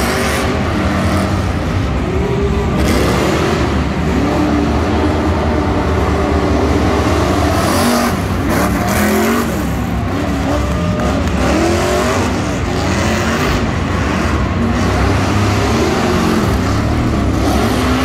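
Engines of pickup trucks racing around a dirt arena, loud and continuous, their pitch rising and falling again and again as they rev up and ease off.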